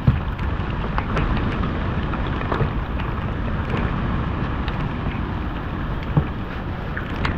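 Rain falling steadily, with a few light knocks.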